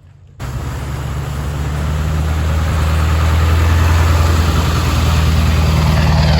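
Ford F350 pickup truck's engine running loud, cutting in suddenly and building in level over the first few seconds, then holding steady.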